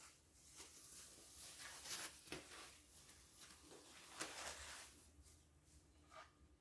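Faint rustling of thin foam packing sheet being unfolded and pulled off a part, in irregular brushes with a few louder ones about two and four seconds in.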